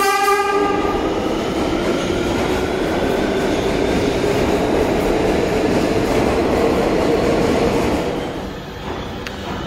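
An R211T New York City subway test train sounds its horn, which cuts off within the first second. Then comes the steady clatter and running noise of the cars rolling past along the platform, growing quieter about eight seconds in.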